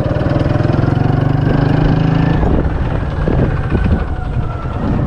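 Small motorcycle engine running steadily under way, then easing off a little over halfway through as the throttle is let off.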